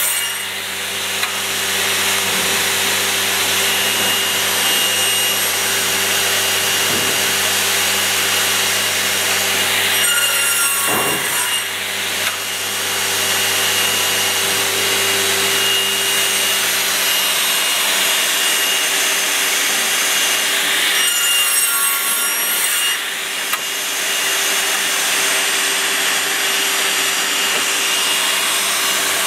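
Graule angle and mitre saw running steadily, its blade cutting through wooden boards several times, with brief changes in the sound around 1, 11 and 22 seconds in. A low hum underneath stops about 17 seconds in.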